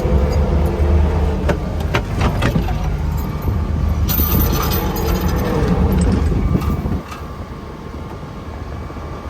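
Compact excavator's diesel engine running under load, with sharp metallic clanks and scraping as the bucket works a stump out of rock. The engine sound drops to a lower level about seven seconds in.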